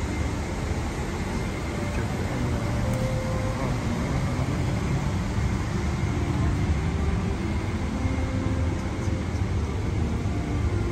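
Steady low rumble of an Airbus A350-900 airliner cabin, the continuous noise of the aircraft's air systems filling the cabin.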